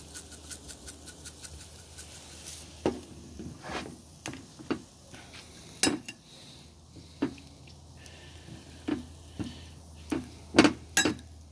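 Scattered clinks and knocks of a seasoning shaker, bottles and utensils handled beside a charcoal grill, starting with a quick rattle of the shaker over the meat; the loudest knocks come near the end.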